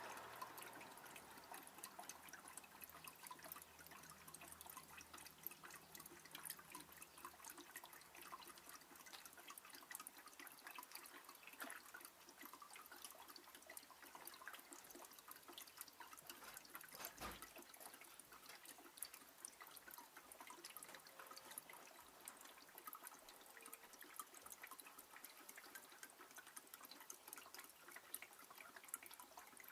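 Oil trickling and dripping from an X-ray tube head into a tub: faint, steady, many small drips. One knock about halfway through.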